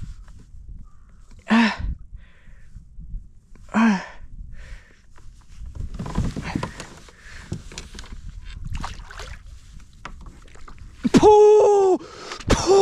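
A man's short strained exclamations, two of them about a second and four seconds in, with water and handling noise in between, then a loud, high-pitched excited shout near the end, followed by more excited yelling.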